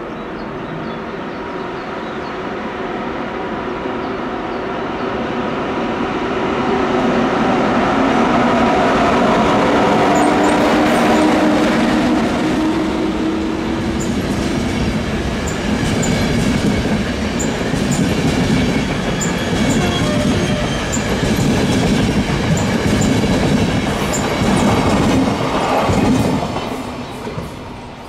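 ÖBB class 1144 electric locomotive hauling an intercity train past. A steady hum from the locomotive grows louder as it approaches. Then the passenger coaches roll by with regular wheel clicks over the rail joints, fading away near the end.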